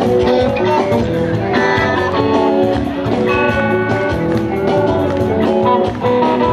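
Live amplified rock music: an instrumental passage led by electric guitar over a steady beat, with sustained melodic notes.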